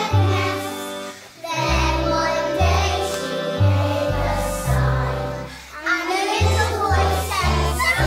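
A choir of young children singing together over backing music with a stepped bass line. The music dips briefly twice.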